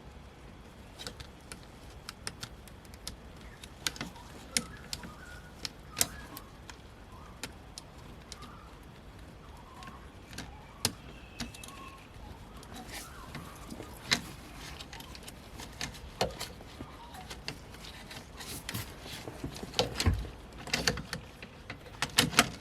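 Scattered light clicks and taps of small plastic parts being handled and fitted: a gear-shifter bulb holder being twisted in and the console trim going back. The clicks come thicker near the end, and faint bird chirps sound in the background during the first half.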